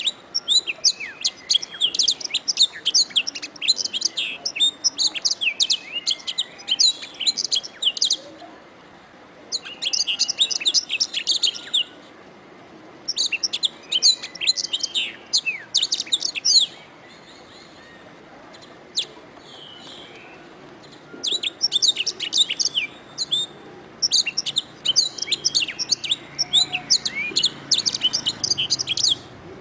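Domestic canary singing: fast, rolling phrases of rapid high chirps and trills, each lasting a few seconds, broken by short pauses and one longer pause just past the middle.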